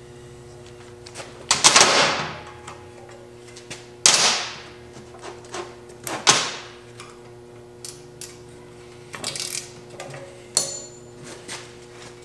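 Metal tools clanking and clicking against a BMW E36 rear trailing arm while its brake backing plate is being unbolted: three louder clanks about two seconds apart in the first half, then lighter clicks and taps, over a steady low hum.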